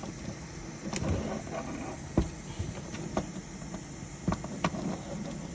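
Scattered light clicks and knocks of hands handling the back of an espresso machine, a few sharp taps spread over a few seconds against a steady hiss.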